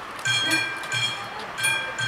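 Level-crossing warning bells of an AŽD 71 crossing starting to ring about a quarter second in, about five bright metallic strikes at uneven spacing. The crossing has just been triggered, warning of an approaching train.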